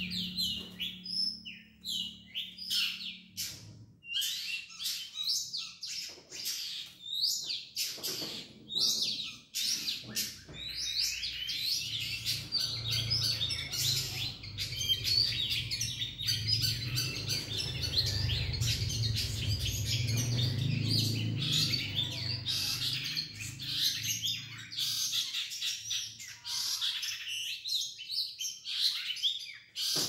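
Caged songbirds, a cendet (long-tailed shrike) among them, singing and chirping in rapid, varied, nearly unbroken phrases. The birds are set near one another to provoke competitive singing ('ngetrek'), the usual way of training a contest bird's fighting spirit.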